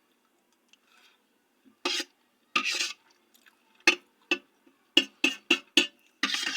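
An eating utensil scraping and clinking against a dish while scooping rice, peas and carrots. After a quiet start come short scrapes and single knocks, then a quick run of about four clinks a second and a final scrape.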